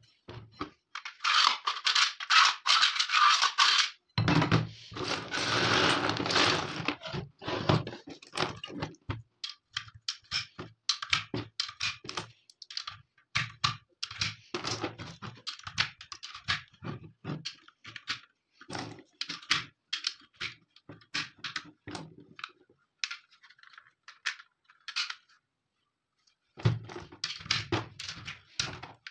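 Dense clatter and sliding of brass cartridges and tools on a wooden table for the first several seconds. Then a long, irregular run of short metallic clicks as 7.62×39 cartridges are pressed one by one into an AKM steel magazine.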